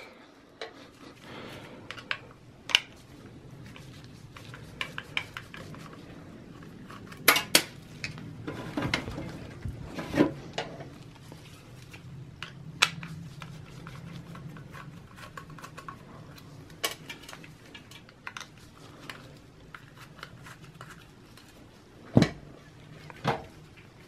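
Screwdriver taking the screws out of a 3.5-inch hard drive and the drive being handled in its plastic mounting bracket: scattered light metal clicks and plastic knocks, with a few sharper ones about seven, ten and twenty-two seconds in.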